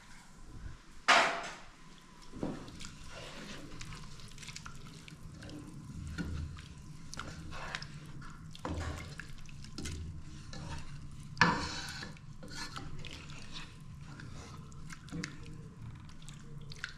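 Hot water poured from a cup into a large pot of tomato-based rice, with a loud splash about a second in and another past the middle. Between them a wooden spatula stirs the wet rice, with small scrapes, knocks and liquid sloshing against the metal pot.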